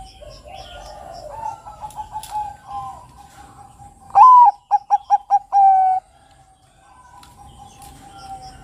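Zebra dove (perkutut, Bangkok type) singing its song once, about four seconds in: a rising opening note, five quick clipped notes, then a long held final note. Fainter cooing and high chirps of other birds come before and after it.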